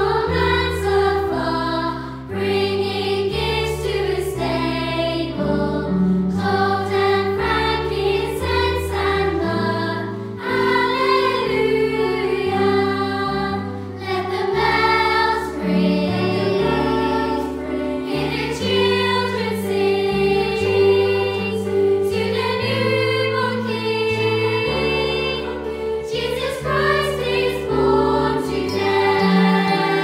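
School choir singing a Christmas carol with instrumental accompaniment under the voices.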